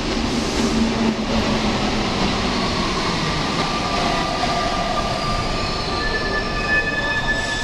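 Paris Métro train running through the station: a steady rumble and rush. A high squeal of several steady tones comes in about three seconds in and is strongest near the end.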